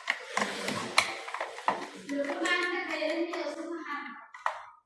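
A few sharp clicks of hands handling parts, then a child's drawn-out, sung voice for about two seconds.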